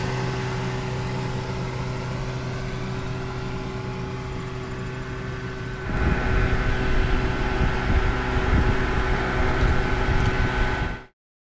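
Steady machine hum holding a few fixed pitches, joined about six seconds in by a louder, uneven low rumble; it starts and stops abruptly.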